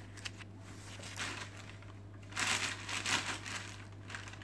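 Plastic bag wrapping crinkling against styrofoam packing and cardboard as a bread maker is lifted out of its box, with the loudest rustling between about two and three and a half seconds in.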